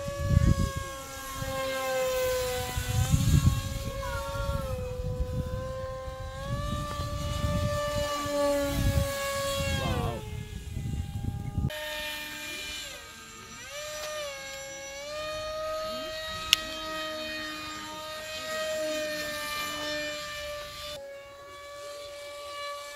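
SkySurfer V4 RC motor glider's electric motor and propeller in flight, a steady buzzing whine whose pitch wavers up and down and dips sharply about ten seconds in. A low rumble of wind on the microphone runs under it for roughly the first half, then cuts off abruptly.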